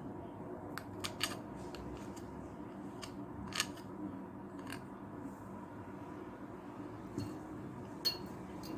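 Scattered light clicks and taps of kitchen handling, about nine at irregular intervals, over a steady low background hum.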